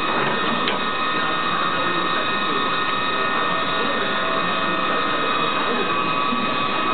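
Haas TL-3 CNC lathe with its spindle running steadily, a whine of several steady tones, spinning an aluminium workpiece with no tool cutting. A single click shortly after the start.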